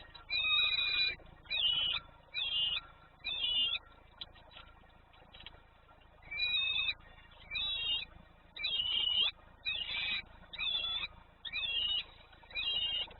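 Bird calls: a run of short, evenly repeated calls, each about half a second long with a pitch that sweeps up and down at once. A first run of four calls is followed by a pause of about two seconds, then a second run of about seven calls.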